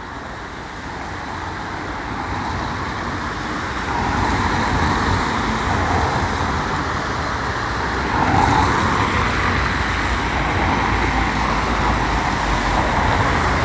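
Road traffic passing close by on a rain-wet street: car engines and tyre noise, growing louder about four seconds in and again about eight seconds in.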